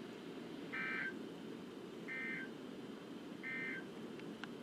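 NOAA Weather Radio SAME end-of-message data bursts: three short warbling digital beeps about a second and a half apart, closing the weekly test broadcast, over a steady hiss of radio static. A few faint clicks near the end.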